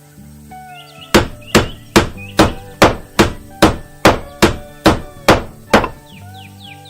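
A steady run of about a dozen sharp, hammer-like knocks, a little over two a second, starting about a second in and stopping near six seconds.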